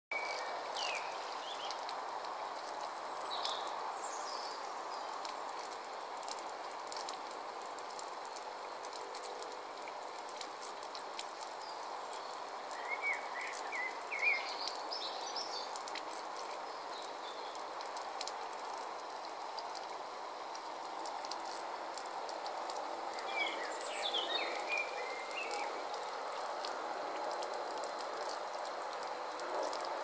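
Water trickling and splashing steadily over the pebbles of a stone-bowl garden fountain. Birds chirp briefly a few times: about a second in, near the middle and again toward the end.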